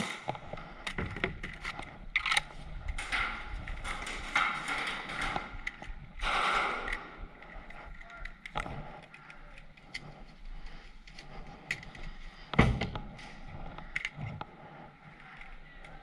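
Scattered paintball gunfire: sharp pops and smacks of markers firing and paintballs hitting, at irregular intervals, with one loud hit about three quarters of the way through.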